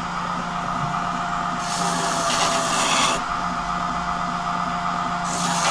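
Belt grinder running with a steady hum, and a mild-steel knife blank is pressed against the belt on its small-wheel plunge attachment twice, each a hissing grind of about a second: about two seconds in and again near the end.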